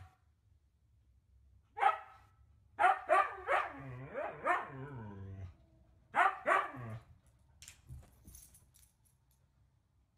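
Siberian husky barking: one bark about two seconds in, then a run of barks that draws out into a wavering, howl-like call, and two more barks about six seconds in.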